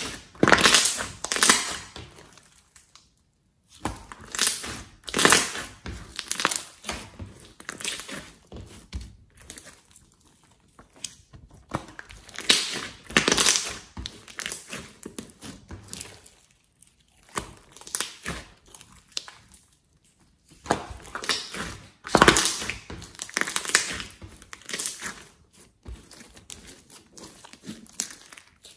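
Hands squeezing, pressing and stretching glossy slime mixed with small foam beads: wet squishing with sharp pops and crackles as air pockets in the slime burst. The sound comes in irregular bursts with brief pauses.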